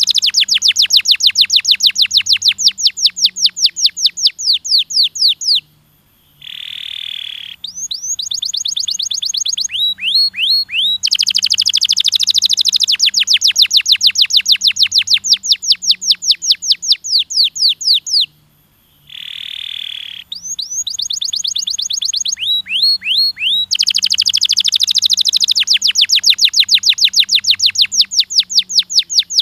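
Domestic canary singing: long rolls of rapid, evenly repeated high down-slurred notes, about eight a second. The rolls are broken twice by a short pause and a brief harsher note before they resume.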